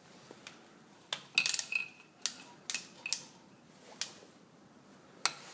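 Hand tools clicking and clinking against metal parts as a screw is taken out of an antique Rockford lathe's spindle clutch: a string of sharp, separate metallic clicks, with one brief ring about a second and a half in.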